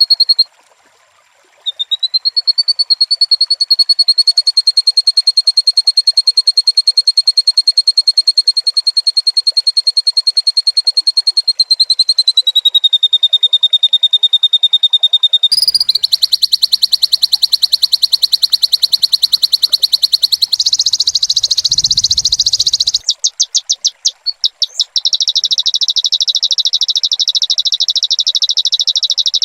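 Loud, rapid, evenly pulsed high-pitched trills, played as a training call for white-rumped shamas. The trilling breaks off briefly near the start, drops slightly in pitch about halfway, then switches abruptly to a buzzier trill with a low hum underneath, and after two short breaks near the end a further trill follows.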